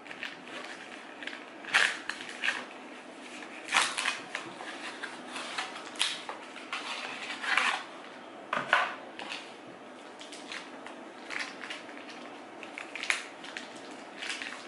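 Cardboard cream cheese box being opened and the foil-wrapped block inside unwrapped: irregular crinkling and rustling of cardboard and foil in short bursts every second or two.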